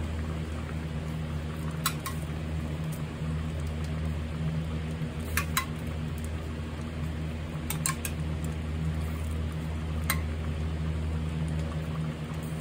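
Metal spoon clinking against a stainless saucepan and a small steel bowl while skimming froth off a simmering stew: a handful of light clinks a few seconds apart, over a steady low hum.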